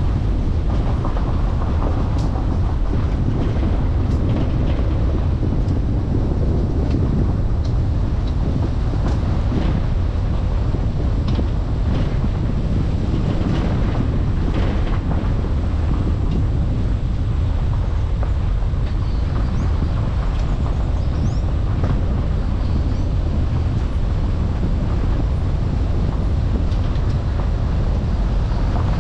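Car driving, heard through a dashcam microphone: steady low road and engine noise, with scattered brief clicks and knocks.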